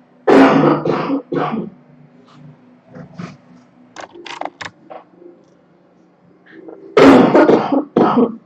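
A girl with a cold coughing in two fits of about three hard coughs each, one near the start and one about seven seconds in.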